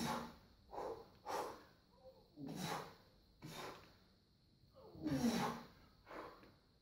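A weightlifter's quick, noisy breaths under a barbell during front squats, roughly one a second, with a louder strained grunt about five seconds in as he drives up out of the bottom of the squat.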